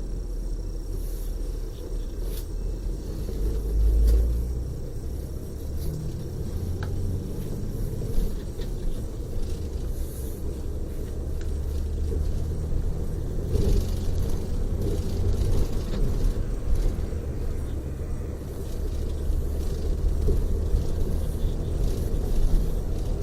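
Steady low rumble of a tour coach's engine and tyres on the road, heard from inside the passenger cabin, with a brief louder swell about four seconds in and a few faint clicks.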